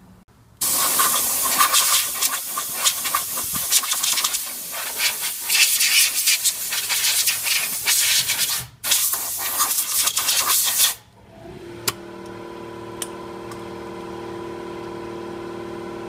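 Compressed-air blow gun blowing old brake dust out of a van's front disc brake caliper bracket: a loud hiss for about ten seconds, broken once briefly near the end. The hiss then stops and a quieter steady hum with several pitches takes over.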